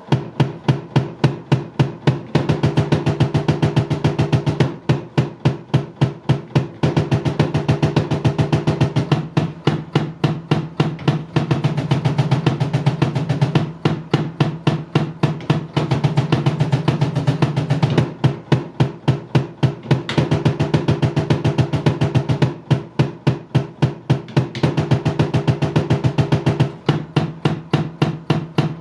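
Kick-drum sound of a Roland V-Drums electronic kit played with a double bass pedal: a fast, even run of kick strokes, changing several times between separate strokes and stretches where the strokes come so fast they blur together.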